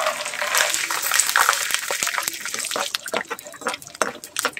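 Raw peanuts dropped into hot oil in a kadai, sizzling hard as they hit. From about three seconds in, the sizzle eases into sharp clicks and pops as a slotted spatula stirs the peanuts in the oil.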